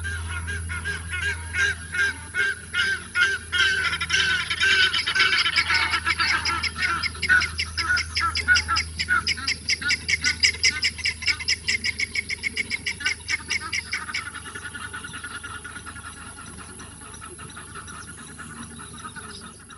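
Birds calling in a fast, repeated series of honking calls, several a second, growing louder about four seconds in and dying down to a softer chatter after about fourteen seconds, over a steady low hum.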